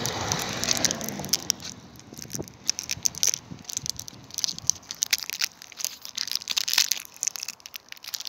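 Irregular crinkling and crackling close to the microphone from a lollipop in its plastic wrapper being unwrapped and handled.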